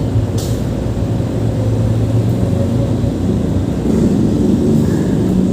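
Steady low mechanical rumble and hum, with a brief sharp click about half a second in.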